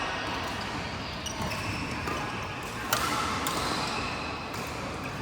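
Badminton rackets striking the shuttlecock in a rally: a few sharp hits, the loudest about three seconds in, over the steady murmur of the hall.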